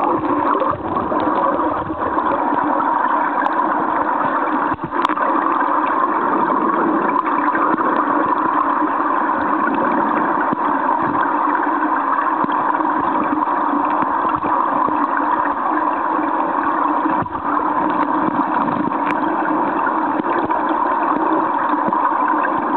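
Stream water flowing past a camera submerged in the current: a steady rushing, with a couple of faint knocks about five seconds in and again later.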